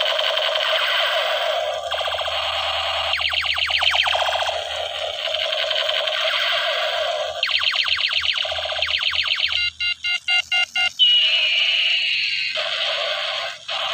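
Battery-powered toy machine gun's electronic sound chip playing rapid-fire shooting effects. Near the end comes a run of short beeps and then a falling tone.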